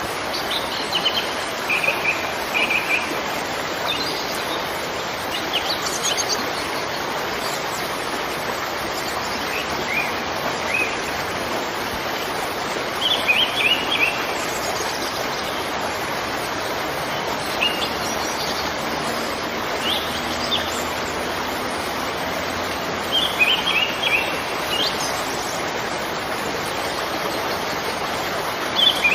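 Steady rush of falling water from a waterfall, with birds chirping in short bursts over it every few seconds.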